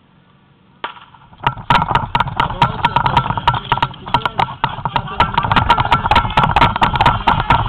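Portable fire pump engine running hard, with rapid sharp knocks and rattles from a helmet-mounted camera jolting as its wearer runs. It cuts in suddenly about a second in, after near quiet.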